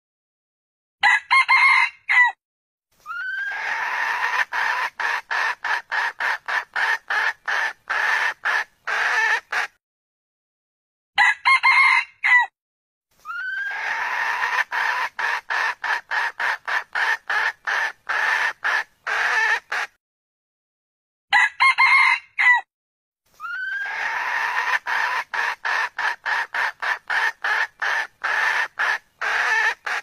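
Red junglefowl (wild chicken) calling: a short crow followed by several seconds of rapid, evenly spaced clucking notes, about three a second. The same crow-and-cluck sequence repeats three times, about every ten seconds, as a loop.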